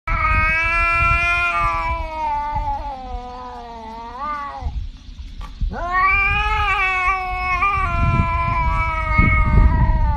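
Domestic cat yowling: two long, drawn-out, wavering calls, the second beginning about six seconds in.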